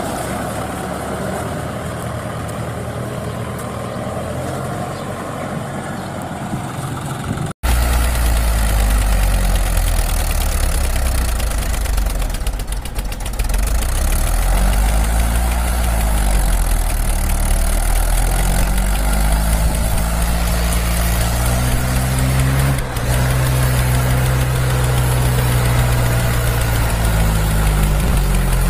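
Tractor engine sound running at idle. About seven and a half seconds in it cuts off for an instant and comes back deeper and louder, its pitch rising and falling a few times as it revs, then holding steady.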